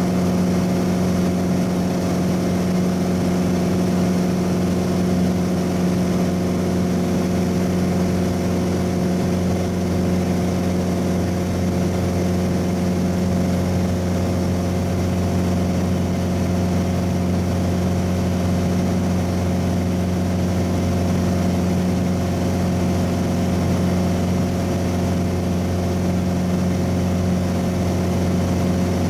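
Single-engine propeller aircraft's engine and propeller running steadily in flight, a constant droning hum heard inside the cockpit.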